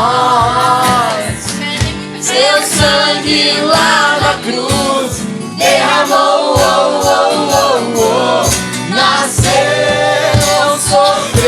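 Voices singing a Christian worship song, accompanied by acoustic guitar and a cajon keeping a steady beat.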